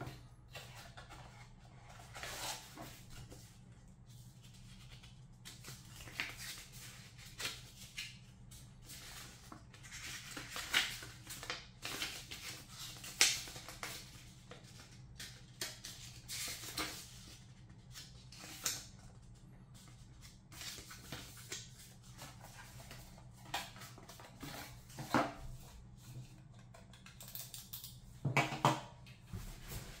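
Cardboard packaging and a paper manual being handled: the box tray sliding and scraping, pages rustling as they are leafed through, and light taps as items are set down on a wooden table. The sounds come at irregular intervals over a faint steady low hum.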